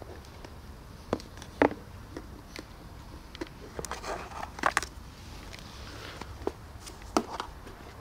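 A plastic food container with dry cat food being handled and set down on pavement: a few sharp plastic clicks and a stretch of rustling about halfway through.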